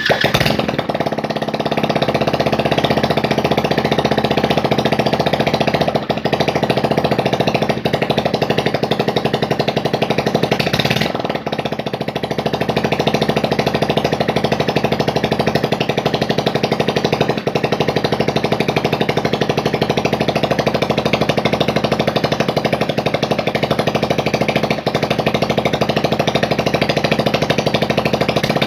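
Home-built chainsaw's 110 cc four-stroke engine running steadily on its first start, with no muffler fitted yet. The running falters briefly about eleven seconds in.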